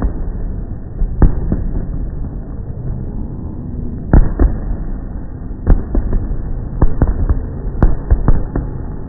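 Aerial fireworks bursting overhead in sharp, irregular bangs over a steady low rumble. The bangs come in ones and pairs at first and grow thicker over the last few seconds.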